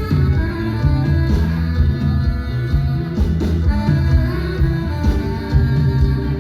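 Live band playing, with guitar over a bass line and drum beats.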